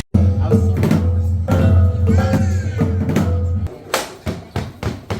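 Background music: a track with a heavy bass and percussion that cuts in after a brief dropout. About three and a half seconds in, the bass drops away, leaving sharp percussive hits.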